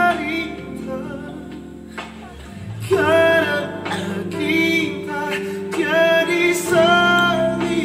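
A slow worship song: voices singing held notes over instrumental accompaniment, pausing briefly and coming back in with a new phrase about three seconds in.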